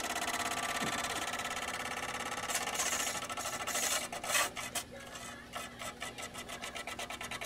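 Disc drive mechanism of an opened ASTAR DVD player making a horrible, rapidly pulsing mechanical buzz as it tries and fails to read the disc, with a few louder rasping bursts about halfway through.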